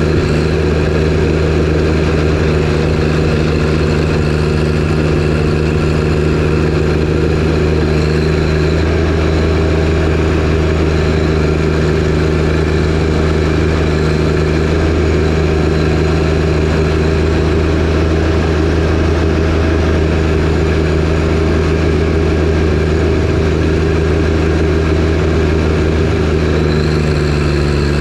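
John Deere 1025R compact tractor's three-cylinder diesel engine running at a steady speed while powering a front-mounted 47-inch snowblower. The engine note shifts slightly near the end.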